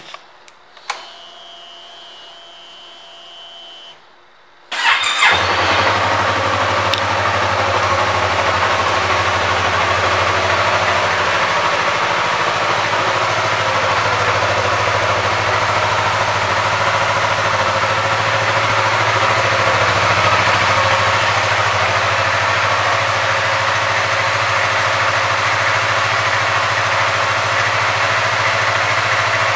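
Yamaha YZF-R3's 321 cc parallel-twin engine started cold after a click and a few seconds of faint whine, catching about five seconds in, then idling steadily.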